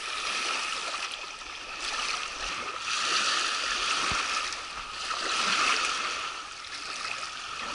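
River water washing and lapping at a pebble shore, a continuous wash that swells and fades every couple of seconds as small waves come in.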